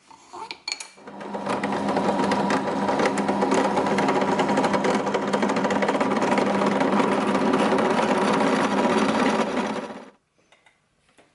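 Bench drill press running steadily, a small twist bit drilling a hole in a brass finger-plane part. It starts with a few clicks in the first second, rises to a steady whir about a second in, and cuts off abruptly near the end.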